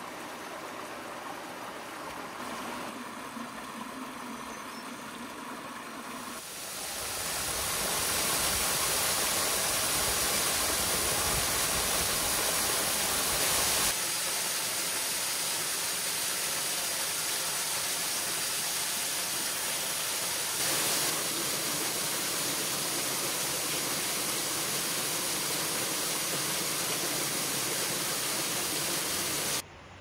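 Steady rush of falling water from a creek waterfall, much louder from about six seconds in and cutting off abruptly just before the end.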